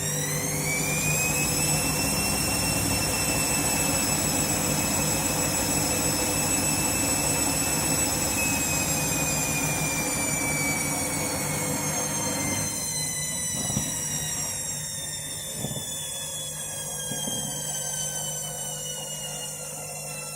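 Candy washing machine on its final 400 rpm spin: the motor whine rises as the drum speeds up, holds steady, then slowly falls as the drum slows down. The running noise drops off about two-thirds of the way through, and there are a couple of light knocks as it coasts.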